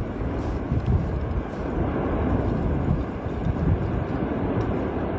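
Cumbre Vieja volcano erupting, its vent fountaining lava: a continuous deep rumble with a couple of louder surges.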